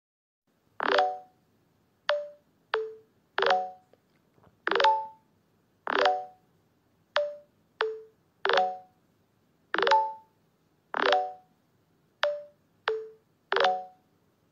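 A series of about fourteen short pitched blips at irregular spacing, starting about a second in. Each is a sharp click with a brief tone, at a few different pitches.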